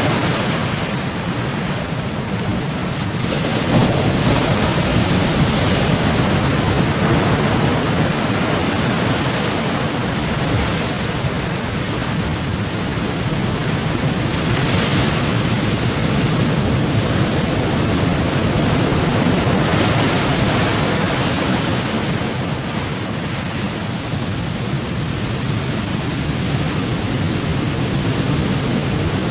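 Steady rushing noise of strong wind and rough sea as big waves hit a bagan fishing boat, rising a little about four seconds in and again around fifteen seconds.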